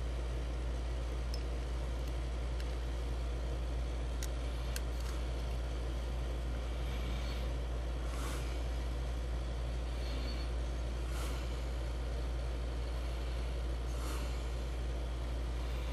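Steady low hum of room noise, with faint light clicks and soft rustles as a 7-segment LED display and its small circuit board are handled and fitted together.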